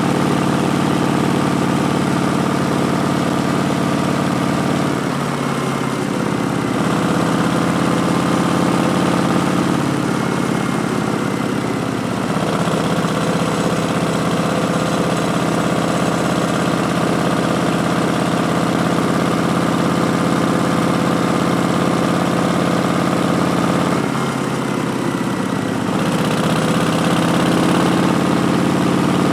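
A Harley-Davidson Street Bob's Milwaukee-Eight V-twin running through a Vance & Hines Twin Slash slip-on exhaust, a steady exhaust note under way. The note dips and picks up again twice, about five seconds in and again near the end.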